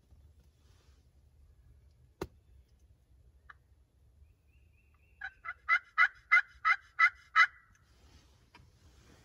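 Wild turkey yelping: a series of about eight evenly spaced yelps, each note breaking from high to low, a little over two seconds long in all. A single sharp click comes earlier, about two seconds in.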